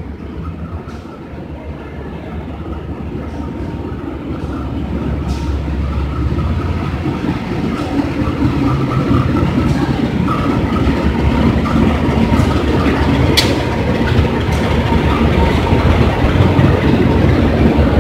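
Passenger train pulling into a station platform, its rumble growing steadily louder as it approaches and draws alongside. A single sharp click comes a little past the middle.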